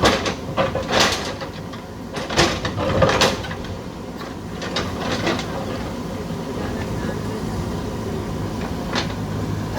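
Diesel engine of a JCB backhoe loader running steadily, with a burst of sharp clanks and knocks in the first three or four seconds and one more near the end.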